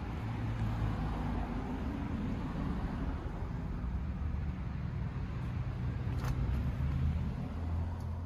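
Car engine running steadily with a low hum, its pitch shifting slightly near the end, and a single click about six seconds in.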